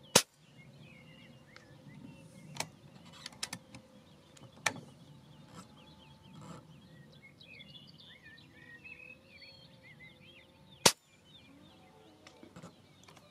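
Two sharp shots from a Reximex Throne Gen2 PCP air rifle firing 33-grain slugs, one right at the start and one near the end. Quieter mechanical clicks come between about two and five seconds in, and birds chirp throughout.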